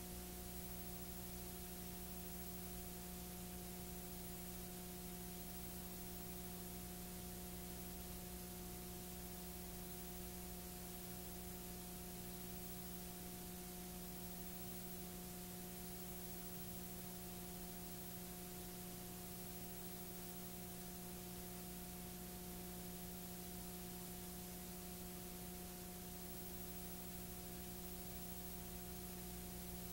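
Faint, steady electrical hum with several constant tones over an even hiss, unchanging throughout: the background noise of a blank stretch of old videotape.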